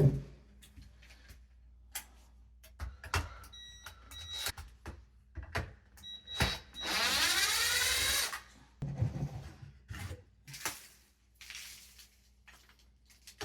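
Scattered knocks and clicks of a door-lock drilling jig being handled and repositioned on a metal door. About seven seconds in, a power drill runs briefly for about two seconds.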